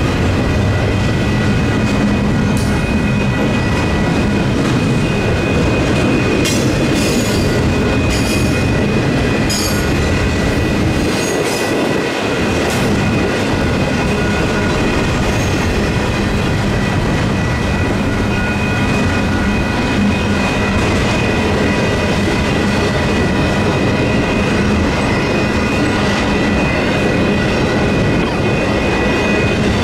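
Union Pacific double-stack intermodal train rolling through a grade crossing: a steady rumble and clatter of well-car wheels on the rails, with a few brief high wheel squeals between about 7 and 10 seconds in. Under it, the crossing's electronic warning bells ring continuously.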